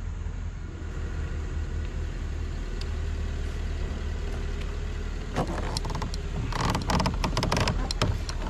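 A steady low rumble, then from about five seconds in a quick run of knocks and rattles from an angler shifting about and handling gear in a plastic fishing kayak.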